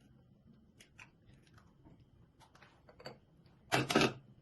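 Two eggs being cracked and opened into a bowl: scattered small clicks and crunches of eggshell, with a louder burst of sound a little under four seconds in.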